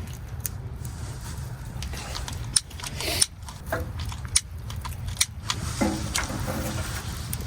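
Scattered sharp clicks and crackles as a tent wood stove packed with dry grass and sticks is being lit, over a low steady rumble.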